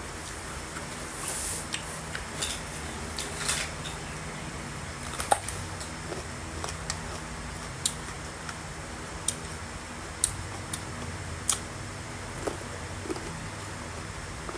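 Close-up eating of crisp fresh plums: sharp crunches and chewing clicks scattered irregularly, over a steady low hum.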